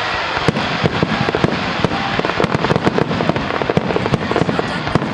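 Fireworks display: a rapid barrage of bangs and crackling bursts over a steady noisy background, starting about half a second in and growing denser.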